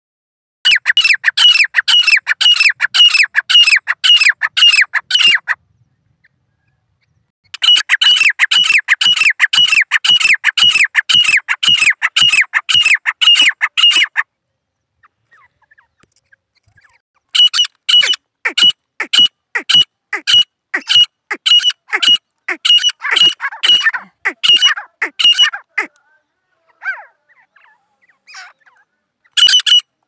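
Caged grey francolins (teetar) calling: long runs of rapid, repeated shrill notes, several a second, in three bouts separated by short pauses, with a fourth bout starting near the end.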